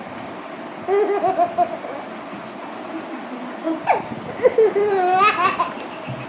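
Baby laughing in two bouts of quick, high-pitched bursts, about a second in and again past the middle, with a sharp falling squeal just before the second bout.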